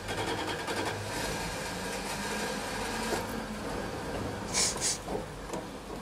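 A van's engine running with a steady mechanical rattle and low hum, with two short bursts of hiss about four and a half seconds in.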